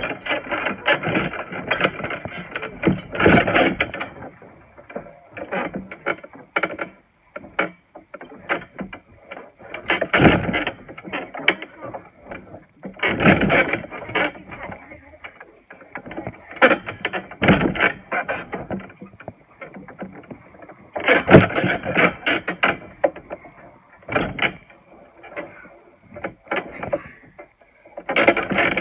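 Trampoline mat and springs thudding and creaking in irregular bursts as someone bounces on it.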